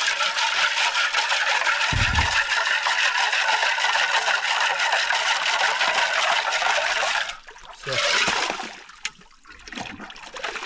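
Water rushing and sloshing as a camp pot is rinsed out. It is a steady rushing noise that cuts off suddenly about seven seconds in, with a dull knock about two seconds in and a short splash about a second after the rushing stops.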